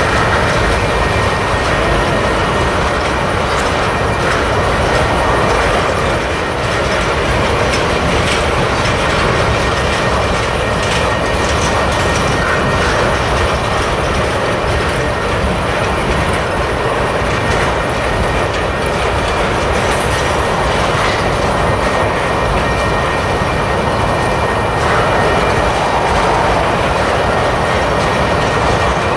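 Freight train tank cars rolling past: a steady, loud rumble of steel wheels on rail with faint clicks over the joints, and a thin, high, steady tone above it.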